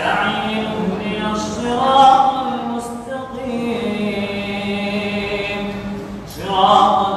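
A man's solo Quran recitation in a chanted, melodic style through a microphone, with long held notes; one phrase ends and a new one begins about six seconds in.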